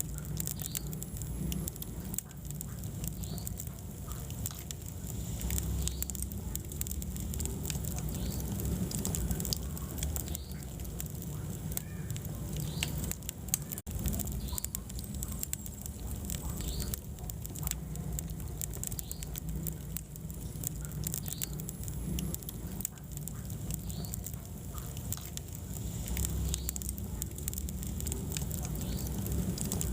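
Wood fire burning in a fireplace: a steady low rumble of flames with frequent sharp crackles and pops, and small high squeaks from the burning logs.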